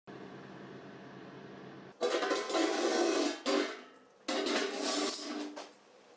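Cordless drill-driver running in two short bursts, driving screws into rivet nuts to fasten a steel panel, after a faint steady hum.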